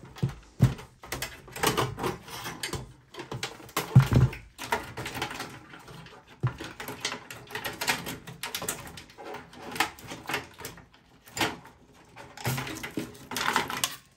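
Handling noise from pulling the power supply unit out of an HP EliteDesk 800 G1's steel case: an irregular run of clicks, knocks and scrapes of metal and plastic as the unit slides free and its cables drag. There is a louder knock about four seconds in.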